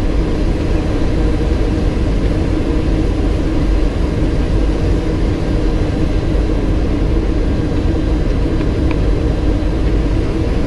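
Steady roar of airflow and engine noise inside a Boeing 737 cockpit in flight on approach, with a low hum running under it.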